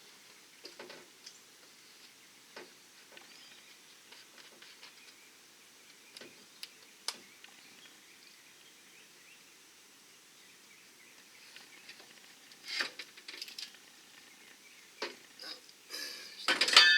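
Scattered small clicks and knocks of work on a pickup's rear bumper, then a loud metallic clatter of clanks near the end as the old chrome bumper comes free of the truck.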